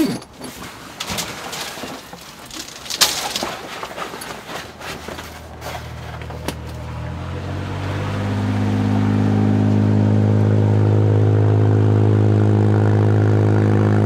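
A passing boat's diesel engine, swelling over a few seconds from about halfway in and then running steadily and loud close by. A few knocks and clicks of handling come before it.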